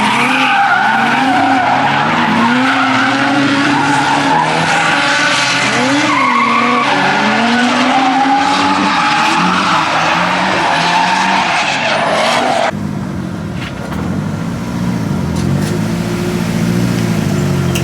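Drift car on track, engine revving up and down as the tyres skid and squeal. About two-thirds of the way through the sound cuts abruptly to a quieter, lower engine note that wavers up and down.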